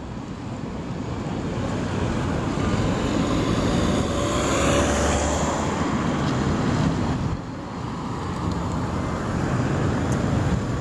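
Street traffic with a vehicle passing close by: the rushing noise swells over the first few seconds, peaks about halfway through and drops off suddenly about seven seconds in.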